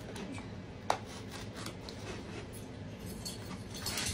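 Small keychain blade slicing the packing tape on a cardboard box, with faint scraping and one sharp click about a second in. Cardboard rustles near the end as the box is handled.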